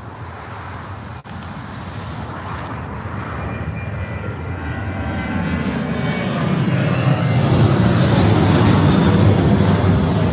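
An airliner's engines growing steadily louder as the plane approaches, a heavy rumble with a faint whine, loudest near the end.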